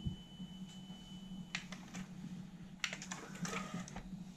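A 3 kHz test tone plays faintly from a calibration tape in a Sony TC-K611S cassette deck and stops with a click about one and a half seconds in. A second or so later comes a quick run of clicks and rattles as the deck's cassette door mechanism opens.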